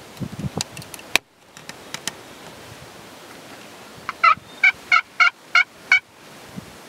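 A series of about seven evenly spaced turkey yelps, roughly three a second, starting about four seconds in. A single sharp click a little over a second in.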